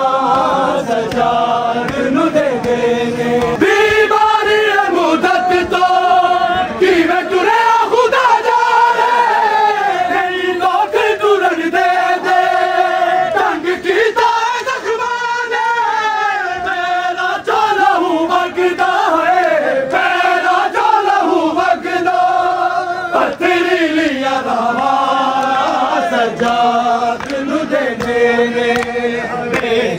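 A group of men chanting a noha, a Shia mourning lament, in unison, with long held, wavering notes.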